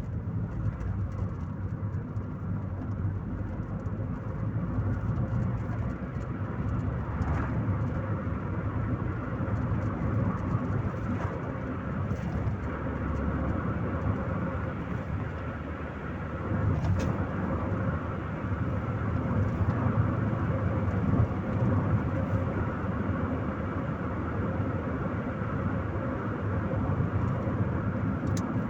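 Chevrolet Corsa Maxx being driven, heard from inside the cabin: a steady low rumble of engine and road noise that eases off briefly about halfway through and then builds again.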